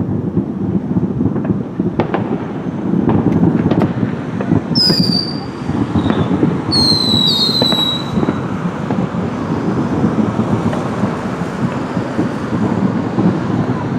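Fireworks finale barrage: continuous crackling and booming with scattered sharp pops. Whistling fireworks shriek twice, about five and seven seconds in, each whistle falling in pitch and then holding.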